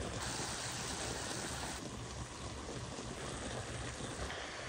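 Cauliflower florets frying in a hot black pan, a steady hissing sizzle with a low rumble underneath.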